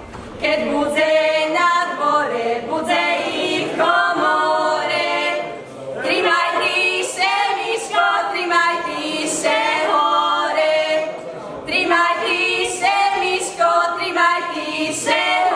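A group of young women singing a Slovak wedding folk song for the bride's capping ceremony, unaccompanied, in phrases of a few seconds with short breaks between them.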